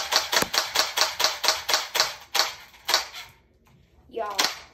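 Battery-powered gel blaster pistol firing on full auto, a fast even rattle of shots at about eight a second that stops about three seconds in. A brief voice sound follows near the end.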